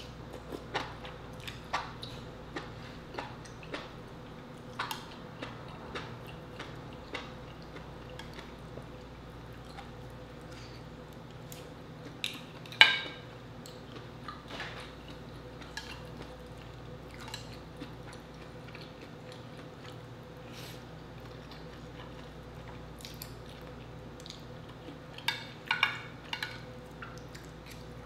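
Close-up mouth sounds of someone eating spicy instant noodles and seafood: wet chewing and smacking in many small clicks, with louder slurps about halfway and again near the end. A faint steady hum sits underneath.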